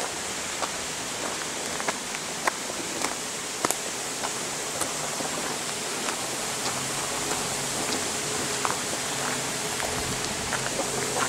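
Steady rushing of a mountain stream, with scattered light crunches of footsteps on the stony path. A faint low hum comes in about seven seconds in.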